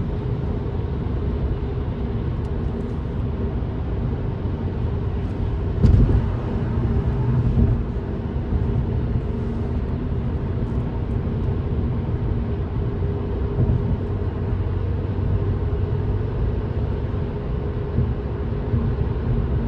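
Steady engine and tyre noise heard inside a car cabin while driving on a rain-wet highway, with a brief louder swell about six seconds in.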